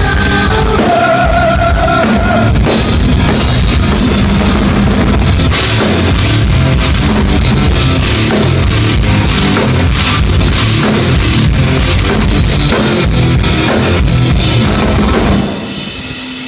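Rock band playing loudly, with a full drum kit and guitar, until it stops about a second before the end.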